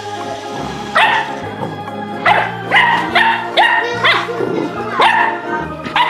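English Pointer puppy barking repeatedly, about eight short sharp barks, over background music.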